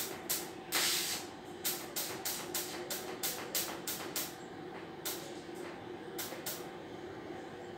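Argon (TIG) welding arc on steel tubing, sounding in short hissing bursts about three a second, with a longer hiss about a second in and a few scattered bursts after four seconds. A steady hum runs underneath.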